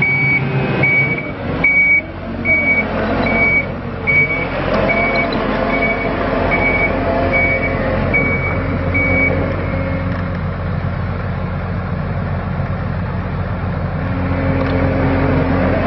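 IHI IC75 crawler dump carrier's diesel engine running as the machine moves, with its backup alarm beeping at an even pace, a little faster than once a second. The beeping stops about two-thirds of the way through while the engine keeps running.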